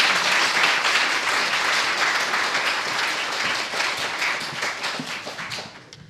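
Audience applause: many people clapping together, dying away near the end.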